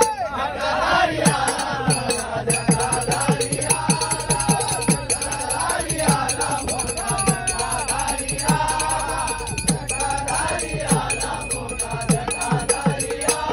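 A group of men singing a Marathi devotional bhajan together, with percussion keeping a steady beat.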